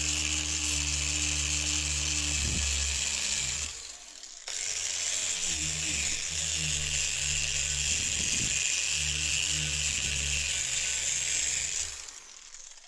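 Angle grinder with a wire cup brush scrubbing rust off a steel spade blade: a steady motor hum under the harsh hiss of the spinning wire bristles on the metal. It breaks off briefly about four seconds in, starts again, and winds down near the end.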